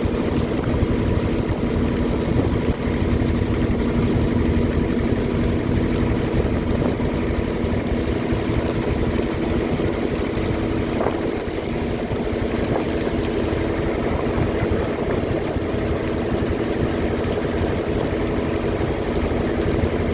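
A river boat's engine running at a steady speed: a constant drone with a steady hum.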